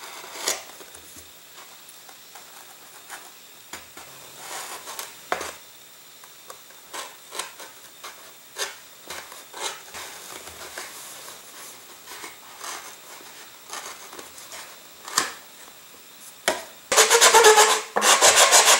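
Hobby knife scoring around a cardboard rocket body tube, making repeated short scraping cuts along the marked line until it cuts through. Near the end a much louder, fast rasping begins.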